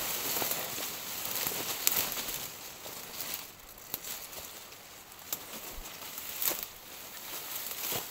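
Dry brush, twigs and leaves rustling, crackling and snapping as someone pushes through dense scrub on foot, a little quieter in the middle.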